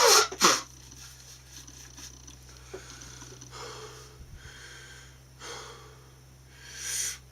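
A man breathing hard through the burn of a very hot chilli-extract sauce: a loud, harsh breath in the first half-second, then a few quieter breaths in and out.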